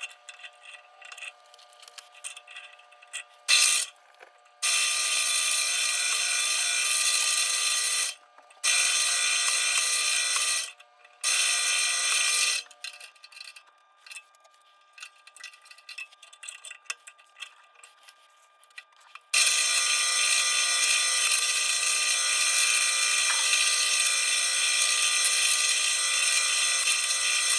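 Drill press motor running and drilling into a metal plate in several stretches: a brief blip, three runs of a few seconds each, then a long steady run of about eight seconds near the end, with small handling clatter between them.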